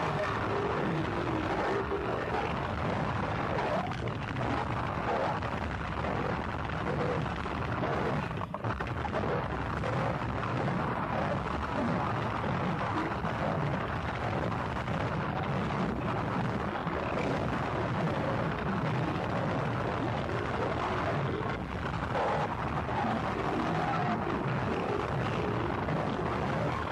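Gorenoise track: an unbroken wall of dense, distorted noise at an even level, with low wavering tones drifting through it.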